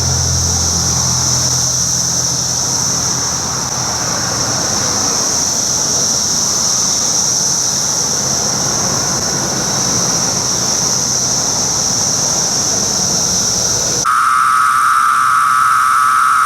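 Brood X periodical cicadas chorusing: a loud, steady, high-pitched buzz. About 14 seconds in, the sound changes abruptly and a lower steady droning call joins the high buzz.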